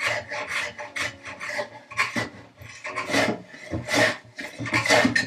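Hand plane taking quick, light shaving strokes across the dovetailed hardwood corners of a box, about two or three strokes a second, levelling the cherry flush with the neighbouring wood.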